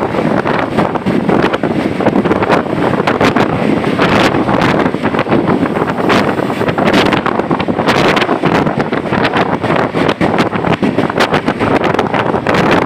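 Steady loud rush of wind and moving-vehicle noise, with irregular gusts buffeting the microphone.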